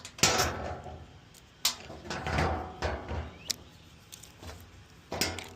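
Tools and parts being handled: a loud knock with a short scrape near the start, then a rustle and several sharp clicks.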